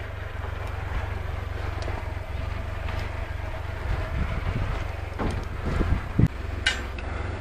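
Low steady rumble, with a few knocks and clicks in the last few seconds as a rope and metal hook are handled, the sharpest knock a little after six seconds in.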